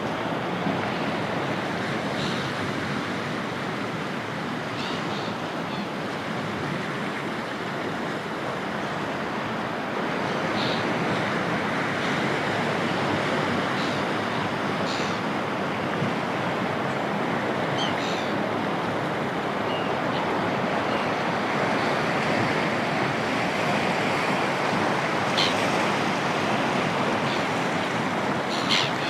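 Sea surf washing continuously, a little louder from about ten seconds in. Short, faint, high seagull calls come now and then, about seven times.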